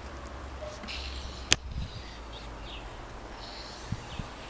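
Cap being twisted on a large bottle of cola: a brief hiss of escaping gas about a second in, then a single sharp click. Wind rumbles on the microphone throughout.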